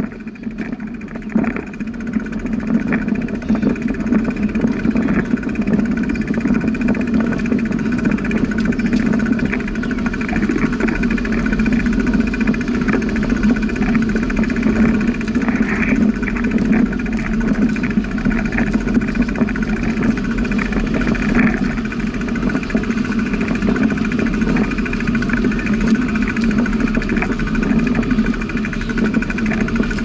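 Steady wind and rolling noise from a bicycle ride, building up over the first few seconds and then holding level.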